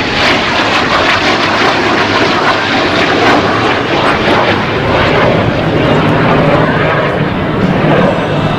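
Jet noise from the Snowbirds' Canadair CT-114 Tutor jets, each powered by a single J85 turbojet, flying their display. It is a loud, steady rush that neither builds nor fades clearly.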